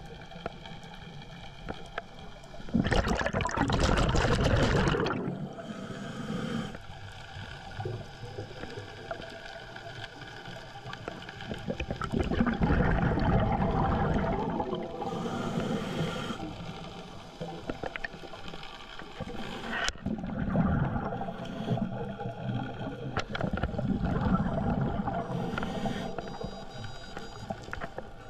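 Scuba regulator breathing heard underwater: loud bubbling exhalations in surges every several seconds, with quieter hiss between them. A faint steady hum runs underneath.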